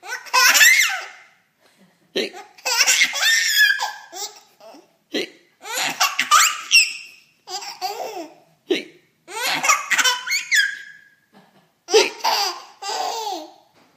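A small child with the hiccups: a short sharp hiccup about every three seconds, each one followed by a burst of high-pitched laughter.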